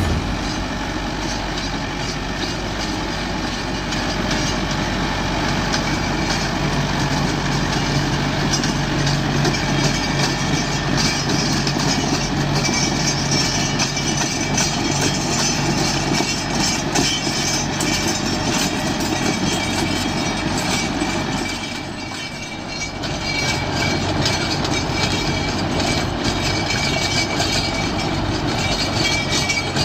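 Mahindra Novo 755 DI tractor's four-cylinder diesel engine running steadily while it drives a Shaktiman rotavator tilling the field. The sound briefly drops away about two-thirds of the way through, then returns.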